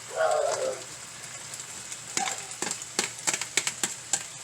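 Chicken and chopped cabbage frying in oil in a large pot with a steady sizzle. A utensil clicks and knocks against the pot in a quick run in the second half, and a brief high pitched sound comes near the start.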